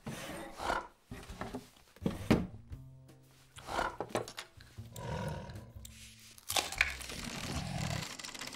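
Cartoon polar bear's growling, grunting vocal noises mixed with short sound effects over background music.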